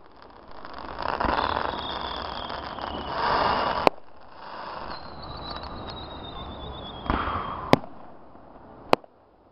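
Aerial fireworks bursting: three sharp bangs, about four, seven and three-quarters, and nine seconds in. Between the bangs there is a noisy rush and a high whistle that slides slightly down in pitch for about two seconds.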